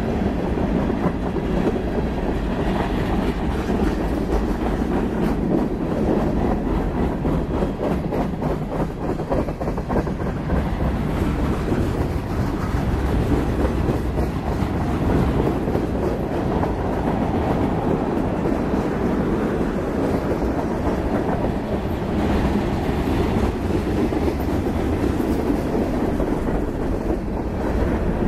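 Freight cars of a mixed freight train rolling past: a steady rumble and clatter of steel wheels on the rails, with fine rapid clicking.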